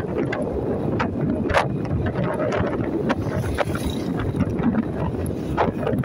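Wind buffeting the microphone on a moving motorcycle, with irregular gusts over a constant low rumble of engine and road noise.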